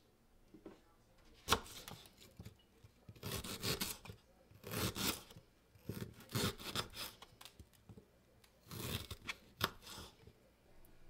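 A kitchen knife cutting through fresh ginger on a wooden cutting board: several short rasping strokes as the blade goes through the fibrous root, with a few sharp taps of the blade on the board.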